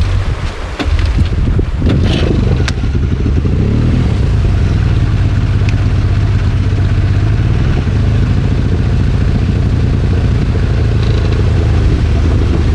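Jet Extreme outboard water-jet motor on an inflatable boat, being tried out under way after a water-pump repair. It revs up between about two and four seconds in, then holds a steady drone. A few knocks and clatters come in the first three seconds.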